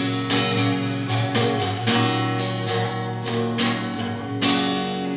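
Instrumental passage of a home-recorded song: a guitar strumming chords in a steady rhythm over sustained low notes, with no singing.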